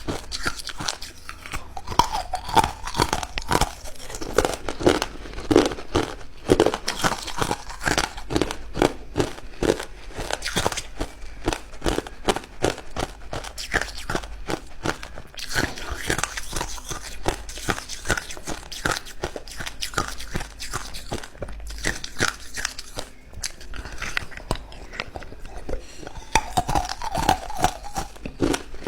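Ice cubes being bitten and chewed close to the microphone: a fast, irregular run of sharp crunches and cracks.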